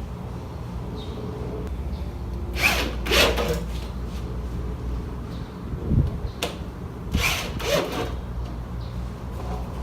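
Power drill driving lag bolts into wooden wall framing, in two short bursts about two and a half and seven seconds in, with a couple of sharp knocks between them.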